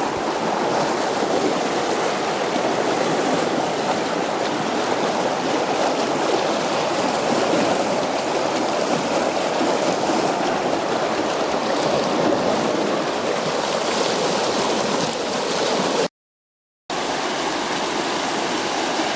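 Floodwater of the River Axe rushing through at a bridge, a steady loud roar of fast, high water. The sound drops out completely for under a second about three-quarters of the way through.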